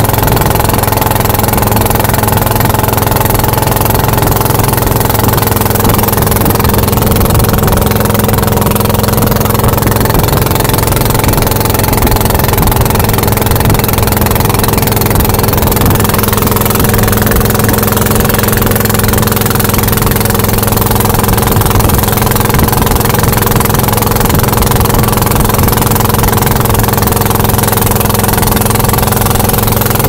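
Long-tail boat's engine running steadily at cruising speed, with a rush of water spray and wind.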